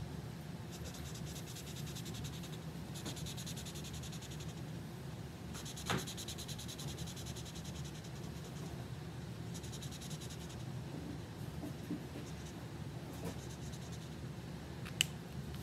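A felt-tip marker scribbling on paper in quick back-and-forth strokes as a shape is coloured in, in several stretches of a second or two each. A click about six seconds in and a sharper one near the end, over a low steady hum.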